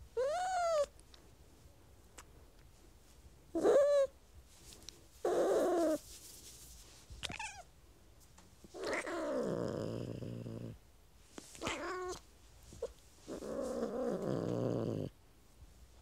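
A domestic cat meowing and growling in a series of about seven calls. Short meows rise and fall in pitch, and longer, rough growling yowls last about two seconds each, around the middle and near the end. The calls are those of an upset, angry cat.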